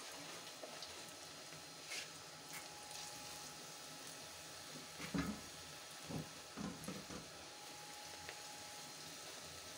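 Gobhi pakoras (battered cauliflower) deep-frying in hot oil in a wok, a steady sizzle, with a few short clicks and soft knocks as more batter is dropped in by hand.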